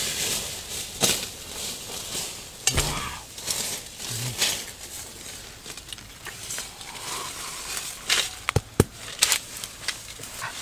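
Digging in soil among leafy plants: irregular rustling and crunching of leaves and earth, with several sharp clicks and snaps near the end.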